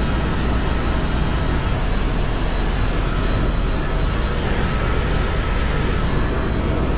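Helicopter engine and rotor running in flight: a steady, even noise, heaviest in the low end.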